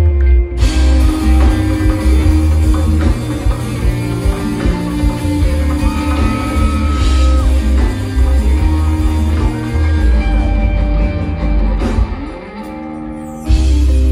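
Reggae band playing live through a large festival PA: electric guitars, keyboard and drums over a heavy bass line. About twelve seconds in the band drops to a quieter break, then comes back in full just before the end.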